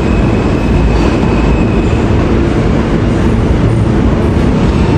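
New York City subway train pulling out of the station on the tunnel track: a loud, steady rumble of wheels on rail, with a thin high wheel squeal that fades out about two seconds in.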